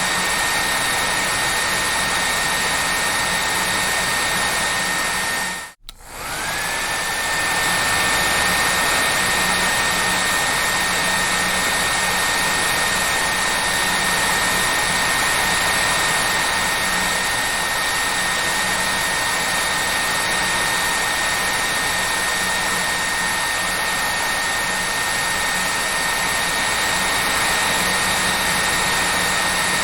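Hair dryer running steadily, a rushing blow with a high whine. About six seconds in the sound cuts out almost to silence for a moment, then returns with the whine rising back up to its steady pitch.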